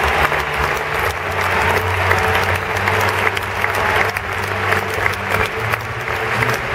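Large stadium crowd applauding steadily, a dense patter of many hands clapping.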